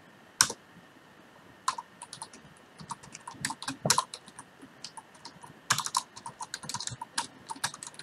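Typing on a computer keyboard: a single keystroke about half a second in, then irregular runs of quick key clicks from a couple of seconds in.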